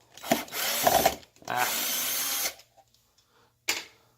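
Cordless drill driver run in two short bursts of about a second each, backing out the screws that hold a speaker tweeter in its cabinet; a single sharp click follows near the end.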